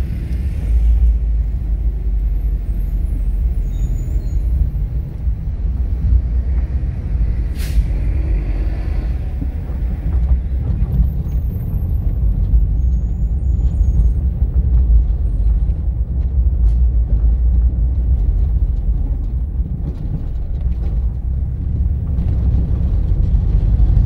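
Steady low rumble of road and engine noise from a car driving through city streets. A brief sharp hiss comes about eight seconds in.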